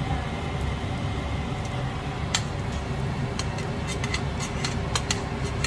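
Butter sizzling in a frying pan under a tortilla wrap, over a steady low hum. From about two seconds in come scattered sharp clicks and pops as metal tongs grip and turn the wrap in the pan.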